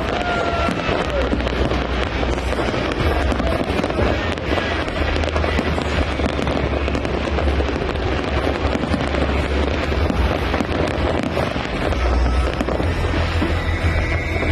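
Fireworks going off continuously in a dense volley of crackles and bangs over a steady low rumble, with a few rising and falling whistles near the start and end.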